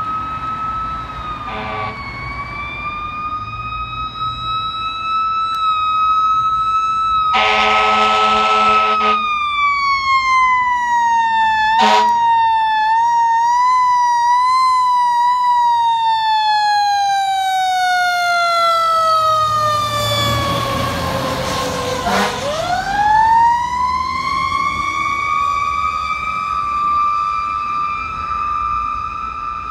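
E-One fire engine responding under siren: a long wailing tone that slides slowly down for many seconds, then sweeps sharply back up and holds. Air-horn blasts cut in over it: a short one, a longer one of about two seconds, and another short one.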